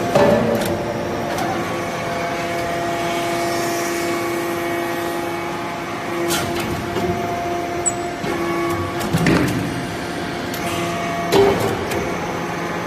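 Hydraulic power unit of a metal-chip briquetting press running: a steady pump and motor hum with a held whine, broken by a few short knocks about six, nine and eleven seconds in.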